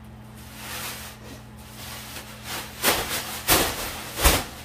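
A large black plastic garbage bag rustling as it is shaken open, with three loud flapping whooshes in the second half.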